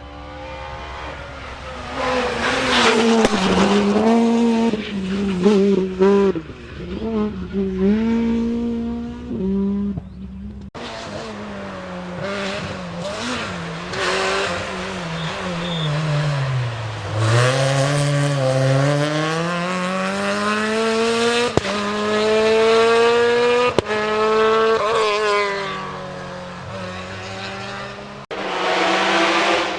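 Rally car engines at full throttle, revving up and dropping back through gear changes. About eleven seconds in the sound cuts to another car, whose engine falls steeply in pitch as it slows, then climbs again as it accelerates away.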